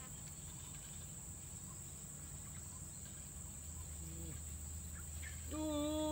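Steady high-pitched insect chirring, crickets or cicadas, with a short low two-note call about four seconds in and a louder, long call held at one pitch near the end.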